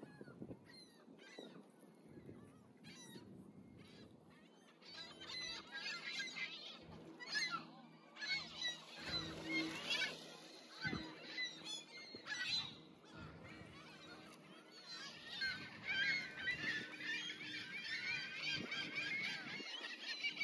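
A flock of waterbirds calling, many overlapping cries. They are sparse at first and swell into a dense chorus about five seconds in, ease off briefly past the middle, then build up again.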